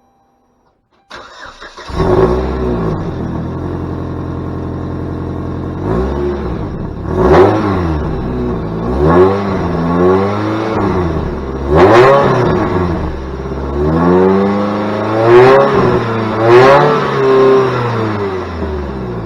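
Saturn Ion Redline's supercharged 2.0 L four-cylinder cranks briefly and starts about a second in, settles to a steady idle, then is revved in about six short blips, its pitch rising and falling each time. The exhaust hole has just been patched with JB Weld tailpipe repair wrap that has not yet cured.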